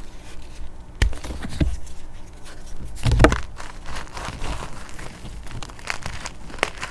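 Crunchy chalk being crushed by hand, giving an uneven crunching and crumbling with sharp cracks about a second in, the loudest about three seconds in, and another near the end.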